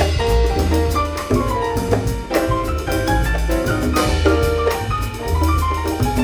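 Live jazz from the rhythm section: piano, double bass, drum kit and congas playing together, with cymbal strokes keeping time.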